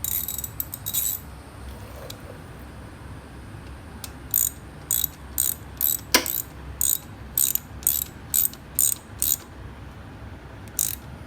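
Ratchet wrench with an Allen bit clicking in short bursts, about two a second, as a caliper bolt on a motorcycle's rear brake is tightened. One sharper knock comes about midway.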